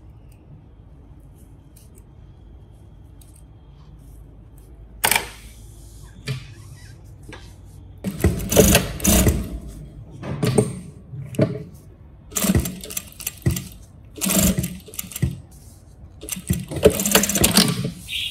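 Sewing machine stitching through a folded fabric strap in short runs of about a second each, starting and stopping several times over the second half. A single sharp click comes a few seconds before the first run.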